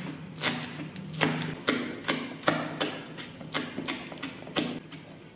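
Chef's knife chopping spring onions on a plastic cutting board: a steady run of sharp knocks, about two to three a second, that stops near the end.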